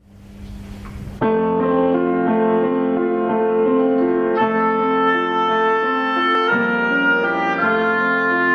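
Grand piano starts a slow classical accompaniment about a second in, notes and chords struck in an even pulse, after a short rush of noise.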